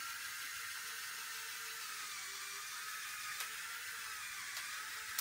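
LEGO Technic model car's motors and sequential gearbox whirring steadily as it drives, with a faint whine that wavers in pitch. There are two small clicks in the second half.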